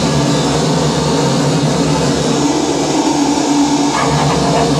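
Loud, steady electronic noise drone from a small mixer and patch cables being worked by hand, a thick low hum under rough hiss, with a couple of short brighter squeaks about four seconds in.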